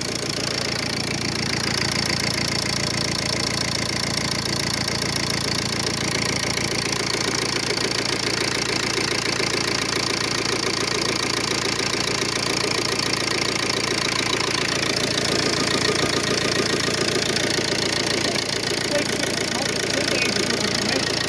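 Ford Focus diesel engine idling steadily.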